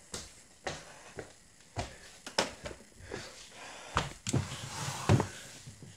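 Irregular knocks and thumps with some rustling from handling a phone while walking, about seven hits in all, the loudest about five seconds in.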